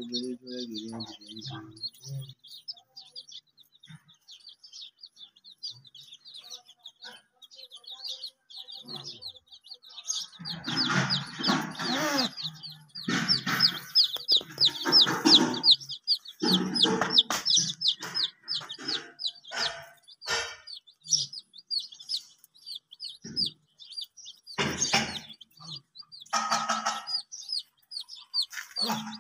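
A flock of baby chicks peeping steadily in quick, high, falling cheeps. From about ten seconds in, louder, lower chicken calls come in bouts over the peeping.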